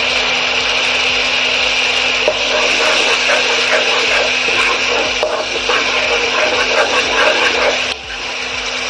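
Spiced tomato-garlic masala sizzling in hot mustard oil in a kadhai while a spatula stirs and scrapes it: a steady hiss with scraping strokes, over a steady hum. The masala is being fried (bhuna) until the oil separates.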